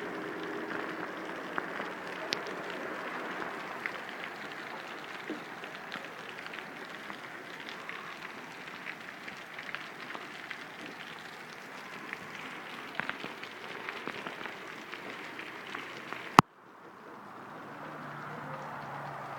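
Steady watery hiss with many small scattered patters, water on a flooded street. About 16 seconds in there is one sharp click, after which the sound drops quieter and slowly builds back.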